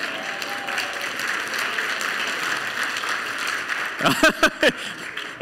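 Congregation applauding, with a short burst of voices calling out about four seconds in.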